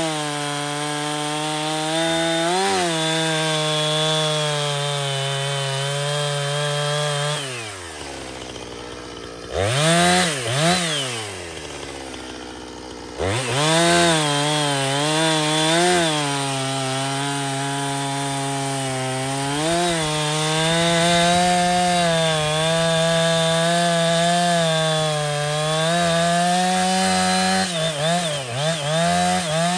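Two-stroke chainsaw cutting wood, its engine note sagging under load. About seven seconds in it drops off the cut, is revved twice, then goes back to steady cutting. It revs up and down again near the end.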